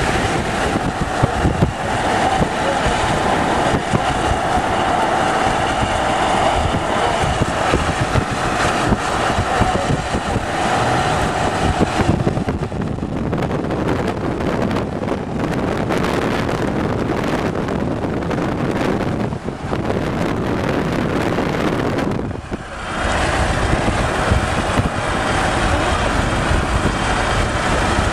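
Strong wind rushing and buffeting the microphone, mixed with vehicle and road noise. The noise changes character abruptly partway through and drops out briefly about three-quarters of the way in.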